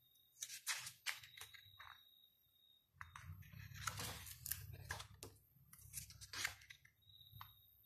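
Glossy pages of a large hardcover photobook being turned by hand: a series of soft, irregular paper rustles and swishes. A faint low rumble joins about three seconds in and fades near the end.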